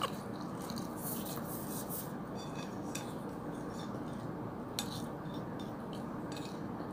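A fork scraping and clicking against a plate while food is picked up from it, faint, with a couple of clearer clicks.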